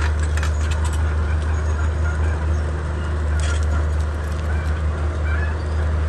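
Komatsu D31P bulldozer's diesel engine running with a steady low drone while clearing forest, with scattered clanks and cracks over it, the sharpest about three and a half seconds in.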